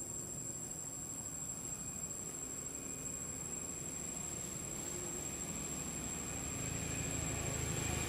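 Insects droning steadily in a high, even pitch, with a low rumble building near the end.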